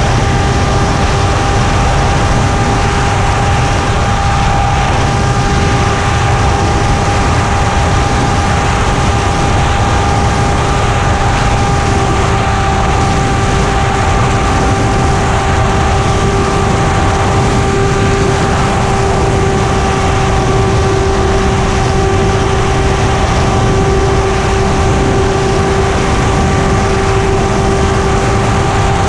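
Radio-controlled model airplane's motor and propeller heard from on board in flight: a steady drone that holds nearly one pitch, with wind rushing over the airframe-mounted microphone.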